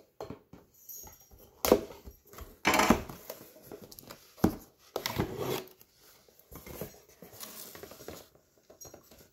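Cardboard headset box being handled and opened: irregular scraping and rustling of the card flaps and packaging, broken by a few sharp knocks, the loudest about four and a half seconds in.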